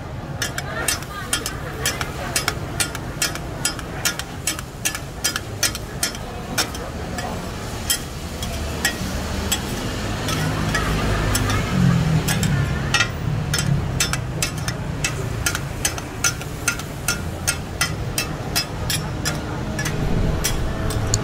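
Two flat metal spatulas clicking and scraping against a steel griddle as noodles are tossed and turned, a sharp click about twice a second.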